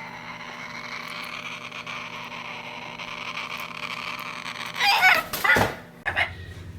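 Two loud, harsh animal calls in quick succession about five seconds in, over a steady background hiss.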